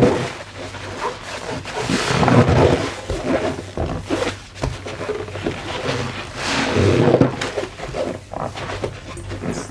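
Foam sponge being squeezed in the hands, squeaking and creaking in repeated bursts that swell and fade.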